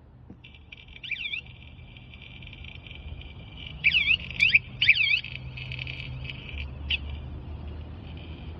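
wsdcam 113 dB vibration-motion bike alarm sounding: a buzzy siren tone with swooping warble sweeps that are loudest a few seconds in, then dying down to a faint tone.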